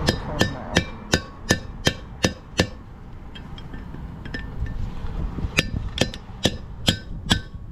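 Hammer blows on a long steel punch, driving the old wheel bearing race out of a truck's front hub and rotor: sharp metallic clinks that ring, about three a second. A run of about eight blows, a pause of a few seconds, then about five more.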